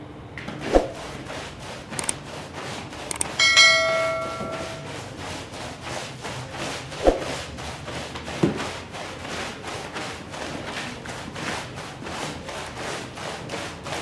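Rug-cleaning work: a rapid, even series of scrubbing strokes, about four a second, broken by a few sharp thuds. About three and a half seconds in, a metal tool clangs and rings for about a second.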